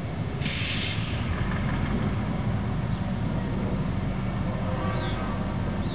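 Diesel locomotive engine rumbling steadily as the train backs slowly along the track, with a short hiss about half a second in.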